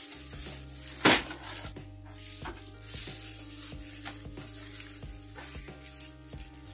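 Clear plastic wrapping crinkling and rustling as it is pulled off a printer, with one sharp knock about a second in, over background music.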